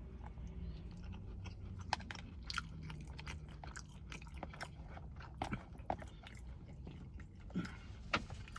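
A person chewing a mouthful of butter chicken close to the microphone, with wet mouth clicks and smacks at irregular intervals.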